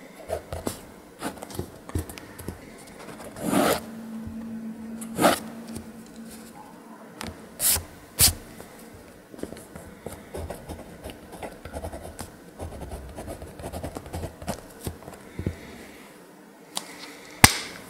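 Mechanical pencil (Pentel Graph Gear 1000) scratching on sketchbook paper in quick, irregular strokes, with a few louder swishes of a hand sweeping across the page.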